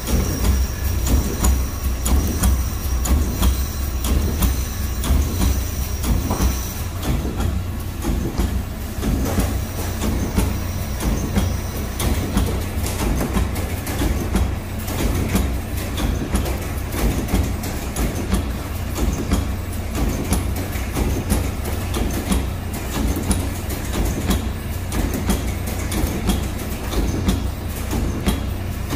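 Automatic wire-mesh welding machine running: a steady low hum under a rapid, repeated clatter from its welding heads and wire feed as it spot-welds the cross wires.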